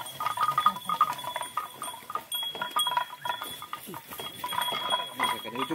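Herd of Bali cattle moving about in a pen: many short knocks and clinks, with a steady thin high tone behind.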